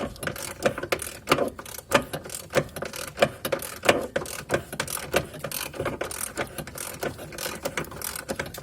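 Ratchet wrench clicking in quick, uneven runs as a bolt is turned.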